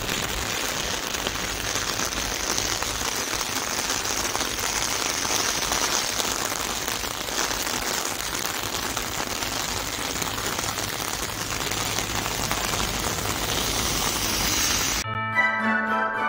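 Steady hiss of light rain on a wet street, with a low rumble underneath. Music starts near the end.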